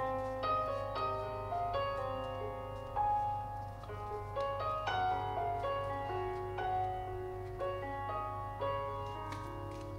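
Background piano music: a gentle melody of single notes.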